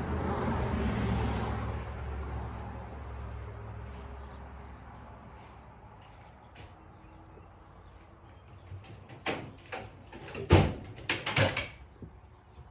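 A passing motor vehicle's low engine hum that fades away over the first few seconds, then a quick run of sharp clicks and knocks near the end, the loudest about two seconds before the end, as tools and parts are handled.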